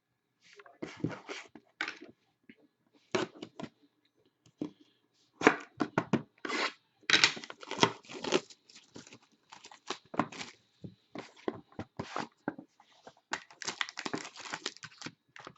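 Foil wrapper of a trading-card pack being torn open and crinkled, in irregular rips and crackles.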